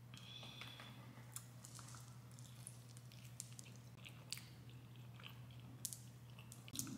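Faint chewing with small crunches and light clicks as someone eats, over a faint steady low hum.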